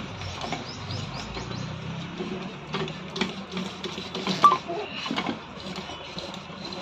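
Avon straight-stitch sewing machine being test-run just after its shuttle and carrier were refitted, its mechanism running with a steady low clatter for about two seconds, followed by a few scattered clicks and knocks as it is handled.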